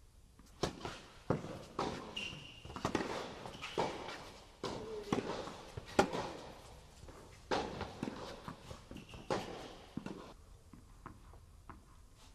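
A tennis rally on an indoor court: sharp, echoing cracks of rackets striking the ball and the ball bouncing, one every half second to second and a half, with a couple of short high squeaks. The rally ends about ten seconds in.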